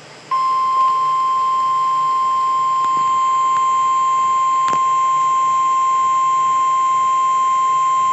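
NOAA Weather Radio 1050 Hz warning alarm tone from a weather radio receiver, one steady, unbroken high beep starting about a third of a second in. This is the tone that sets off alert receivers, here sent as the Required Weekly Test.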